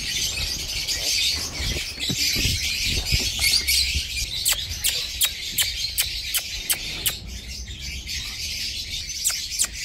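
Many small birds chirping continuously, with a quick series of sharp ticks, about three or four a second, from about four and a half to seven seconds in. A low rumble sits underneath.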